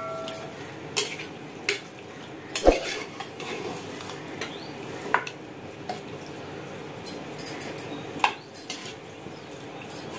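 A perforated metal spoon scraping and clinking against the sides of a metal pressure-cooker pot as mutton pieces are stirred and fried. There are irregular knocks, the loudest nearly three seconds in, over a faint steady sizzle.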